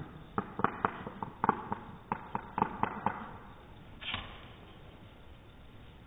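Green aracari sounds, slowed down: a string of irregular sharp clicks through the first three seconds, then a single short noisy burst about four seconds in.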